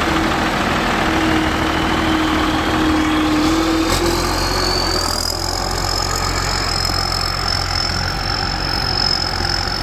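Combine harvester's diesel engine running steadily just after start-up, with a high whine that rises in pitch over the first five seconds or so and then holds steady.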